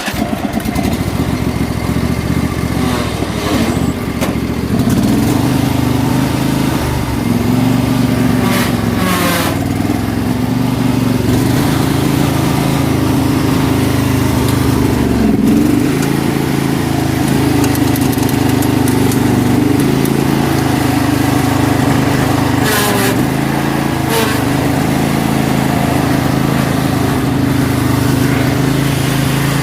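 Riding lawn mower engine running steadily, its pitch sagging briefly a few times. The mower is not moving under it, which the owner blames on the transmission.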